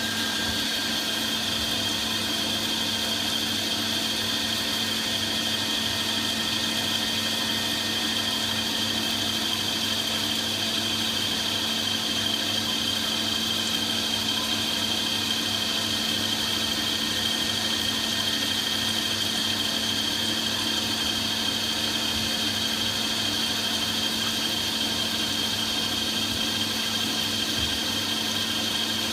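CNC milling machine cutting a metal safety valve blowdown ring: a steady machine drone with a high, even whine over the cutting noise, unchanged throughout.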